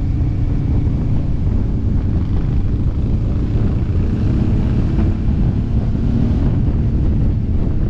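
Wind rushing over a helmet-mounted camera's microphone while riding a motorcycle, with the bike's engine running steadily beneath it.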